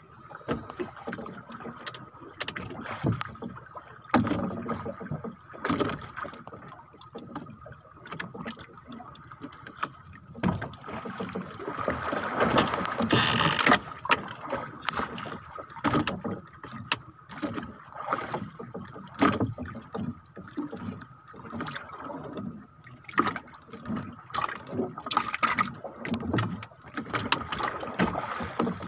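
Irregular knocks, clicks and rustling from handling a fishing handline and gear in a small boat, with a faint steady high tone underneath. A rougher, louder stretch of noise comes about twelve seconds in.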